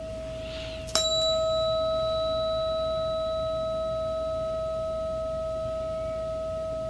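A struck metal sound-healing instrument: one sharp strike about a second in, then a clear, steady ringing tone with a few higher overtones that fades slowly, over a softer tone of the same pitch that was already ringing.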